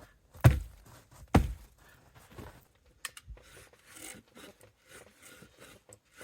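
Two heavy thuds about a second apart, then softer rustling and scraping.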